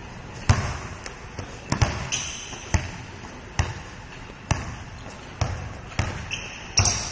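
Basketball being dribbled on a gym floor: sharp bounces about once a second, with two brief high squeaks.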